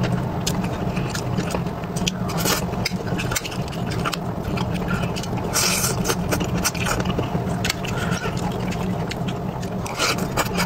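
Close-miked eating: wet chewing and mouth clicks from a mouthful of saucy food, with a metal spoon scraping and tapping on the plate and a few short slurps as strands of food are sucked in, the last near the end.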